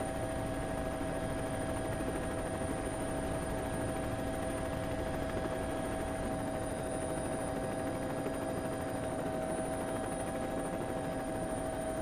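Helicopter running steadily: an even drone of rotor and turbine with a few constant whining tones, holding one level without rising or falling.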